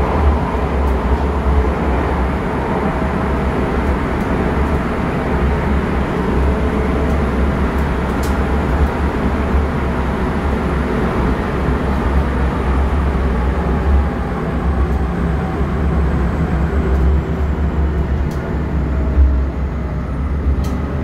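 M4 line metro train running at speed, heard from inside the passenger car: a steady, loud rumble of wheels and motors with a faint high whine that falls slightly in pitch partway through.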